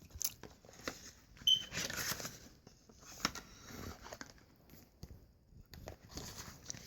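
Phone box contents being handled: light rustling of paper and cardboard packaging with scattered soft clicks and taps.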